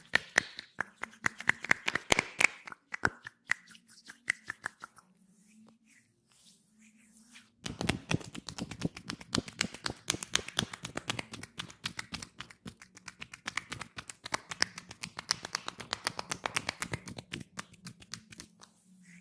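Hand tapping massage: sharp slaps of palms and fingers on skin in quick succession for about five seconds, a short lull, then a longer, faster run of rapid taps.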